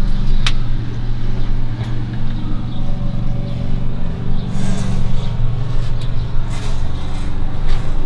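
A steady, loud low mechanical hum, like a motor or engine running, with a couple of light clicks near the start.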